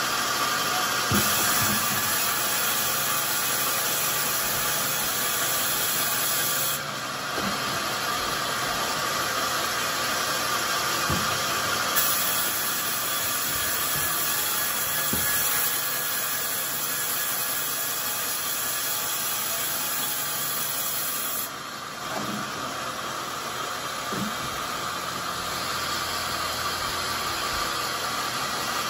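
Band sawmill cutting a coconut-wood beam: a steady mechanical running noise with a hiss from the blade in the wood. The hiss brightens and drops back a few times, with a few faint knocks.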